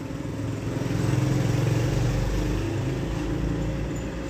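A low engine hum with a rumble under it, swelling about a second in and slowly easing off.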